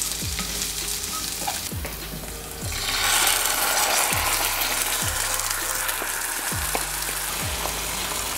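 Diced onion sizzling in melted butter in a frying pan while a wooden spatula stirs it. About three seconds in, the tomato sauce from canned sardines is poured in and the sizzle gets louder.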